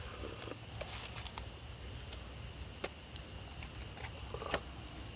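Night chorus of crickets trilling steadily, with a run of about five quick chirps near the start and another near the end. A few soft taps sound underneath.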